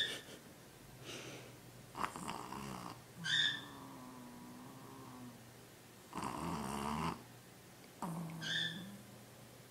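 An animal snoring: a run of snoring breaths every second or two, several with a short high whistle.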